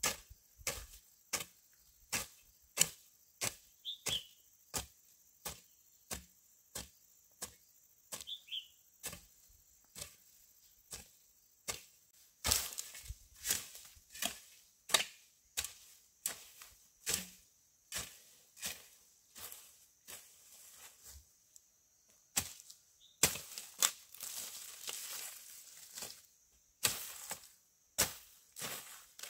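A steady run of sharp chopping blows, about three every two seconds, with a busier stretch of denser noise between the blows about three-quarters of the way through.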